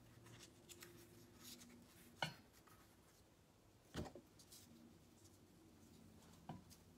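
Near silence with faint handling sounds of paper strips being pressed onto a globe, and three soft taps about two, four and six and a half seconds in.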